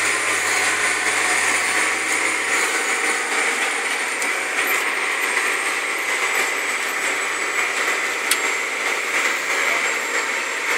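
Steady running noise of a tractor heard from inside its cab as it pulls a disc through a field, with a high whine that drifts slightly lower. A single sharp click comes about eight seconds in.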